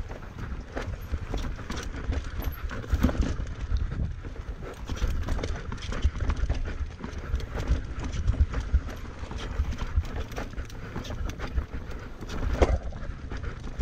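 Mountain bike riding a rough enduro trail: tyres and frame clatter over rocks and roots in quick, irregular knocks over a steady low rumble.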